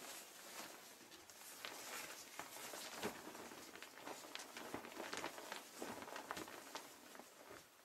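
PVC clothing rustling and crinkling, a faint, irregular run of soft crackles.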